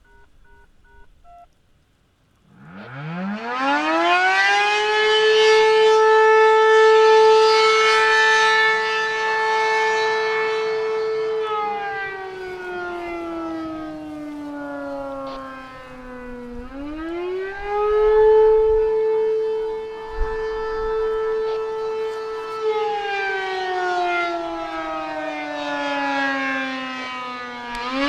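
ACA P-10 8-port civil defense siren sounding the attack signal, preceded by a few faint touch-tone beeps in the first second or so. It winds up about two and a half seconds in and holds a steady wail. It then sinks slowly in pitch, climbs back and holds again, and sinks once more near the end.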